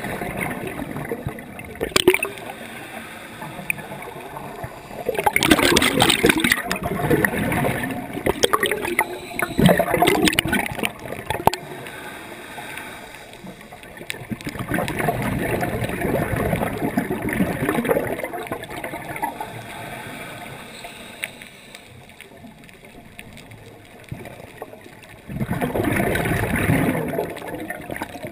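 Scuba diver breathing through a regulator underwater: several long gurgling bursts of exhaled bubbles a few seconds apart, with quieter stretches between.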